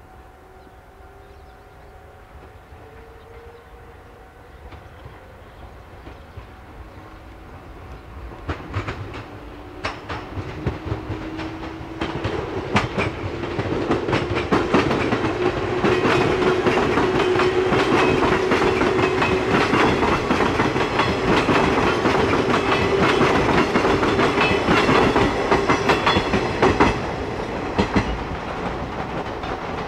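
A JR 381 series electric limited-express train approaching and running past, growing louder from about eight seconds in. Its wheels clack rapidly over the rail joints, under a steady hum that rises slightly in pitch as it nears, then holds. The sound eases off a little near the end.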